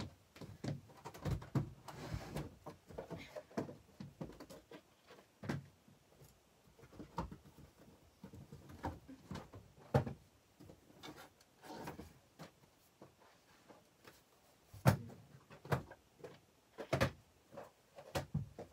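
Irregular knocks, clicks and thumps of someone moving about and handling things in the room, rummaging for stored cards. The sharpest knocks come about ten seconds in and again around fifteen to seventeen seconds in.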